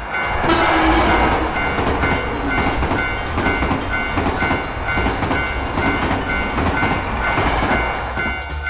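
Railroad crossing warning bell clanging in a steady repeated rhythm while a train passes, the train's rushing, clattering noise coming in loudly about half a second in.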